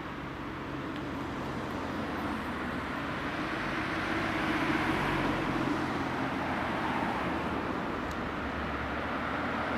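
Road traffic noise: a vehicle passes, its tyre and engine noise swelling to a peak about halfway through and then easing off, over a steady low engine hum.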